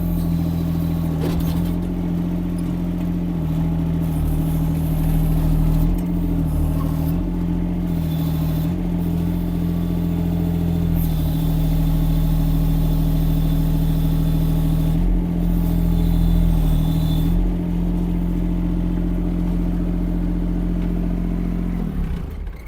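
Chinese mini excavator's engine running steadily under hydraulic load while lifting a heavy log, its pitch dipping briefly several times as the load comes on. The engine sound dies away near the end.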